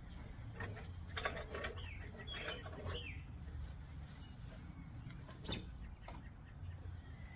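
Doves fluttering, with short high falling squeaks about two to three seconds in and a single sharp sound later, over a low steady hum.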